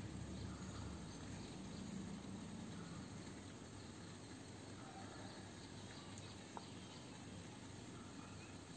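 Faint background room noise with a low hum, and a single small click about six and a half seconds in.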